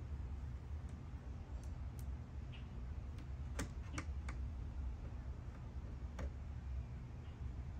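Scattered light, sharp clicks over a steady low hum, with three clicks in quick succession about halfway through and one more a couple of seconds later.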